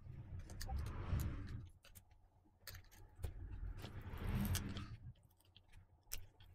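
A glued MacBook Pro Retina battery cell being pried and peeled up from the aluminium case with a plastic pry tool: two long scraping swells with scattered small clicks.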